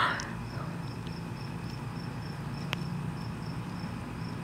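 Insects chirping outdoors: a high, evenly pulsing note repeating steadily, with one faint click a little past the middle.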